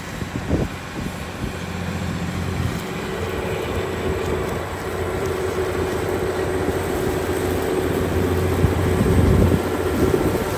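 Diesel engine of a New Holland T9.670 HD four-wheel-drive tractor running steadily under load as it pulls an air drill, growing slowly louder.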